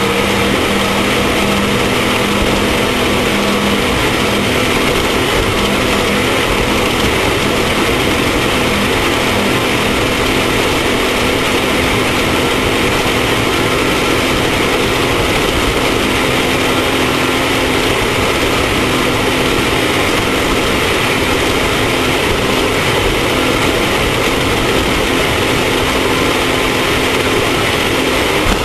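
Off-road race vehicle's engine running at a steady speed under a constant loud rush of noise, with no let-up.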